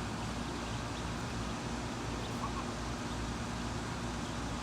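Steady low mechanical hum in the outdoor background, with a faint short peep or two from Muscovy ducklings about two and a half seconds in.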